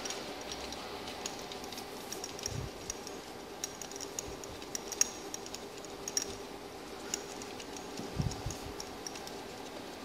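Light metallic clicks and clinks of a duplex timing chain and its steel sprockets being handled and worked onto the crankshaft gear, with a sharper click about halfway and a couple of dull knocks.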